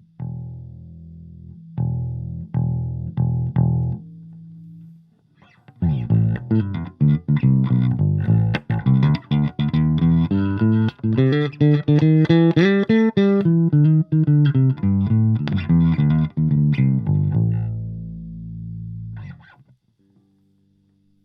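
Electric bass guitar played through a Fender Rumble 25 bass amp. It starts with a few separate plucked notes and a short pause, then a long fast run of notes that climbs in pitch and comes back down. The run ends on a held note that fades out near the end.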